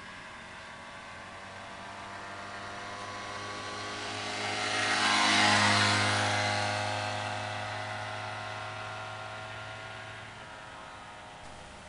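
Yamaha FS1 moped's 49cc two-stroke single-cylinder engine running as it rides past. It grows louder as the moped approaches, is loudest about five to six seconds in as it passes close by, then fades as it rides away.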